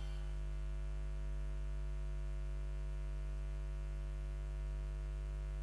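Steady low electrical hum with a faint buzz above it, as the soundtrack music dies away in the first moment.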